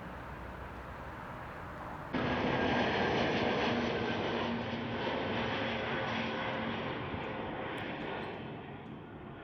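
Aircraft engines running loud, a steady rush with a few held whining tones, coming in suddenly about two seconds in and fading near the end. Before that, a quieter steady rushing noise.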